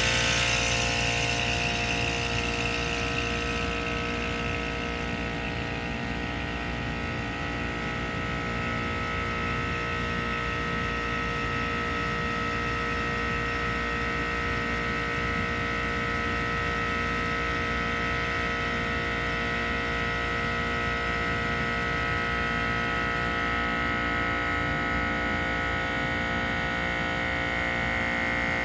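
Rooftop air-conditioning unit running steadily with both refrigeration compressors on, the second one freshly started by jumping out its control: a constant mechanical hum with several steady tones.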